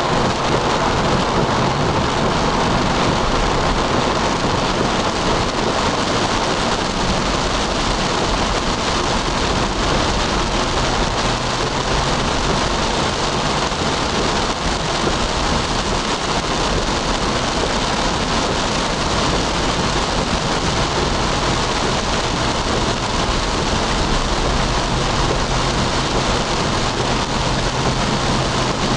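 Heavy rain pelting a car's windshield and roof, heard from inside the cabin while driving, as a loud, steady hiss with the car's low road noise underneath.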